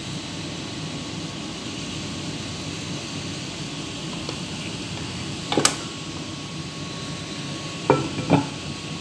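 A pan of curry simmering on an induction hob, a steady hiss. A single clack comes about halfway through, and two knocks near the end as a glass lid is set on the pan.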